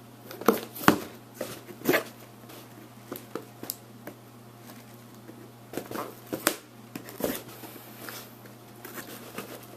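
A pen scraping and jabbing at a taped cardboard box to cut it open: scattered scratches and sharp taps, over a steady low hum.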